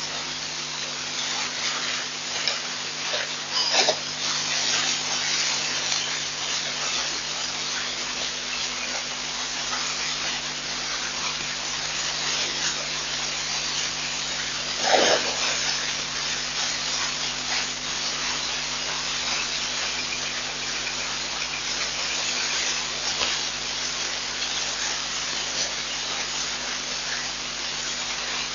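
Steady hiss with a low electrical hum, the noise floor of an outdoor live-stream camera's microphone, broken by a brief louder noise about four seconds in and another about fifteen seconds in.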